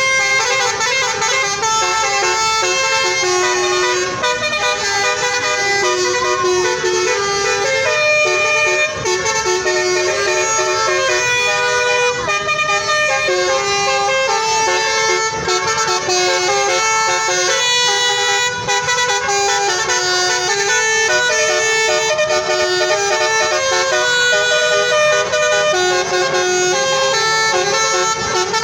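Indonesian 'telolet' multi-tone bus horn playing a continuous tune, its notes stepping up and down with several tones often sounding together.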